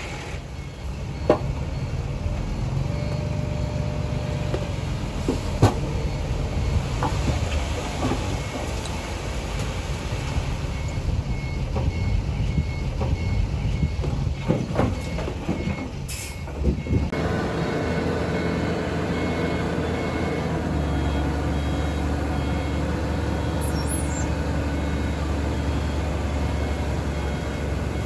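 A bulldozer's diesel engine runs under load, with scattered sharp metallic clanks through the first half. From about 17 seconds in it settles into a steadier, deeper drone.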